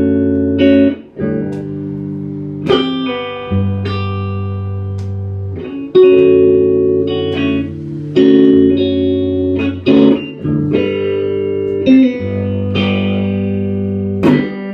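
Guitar music: chords struck and left to ring, changing every one to two and a half seconds, with no singing.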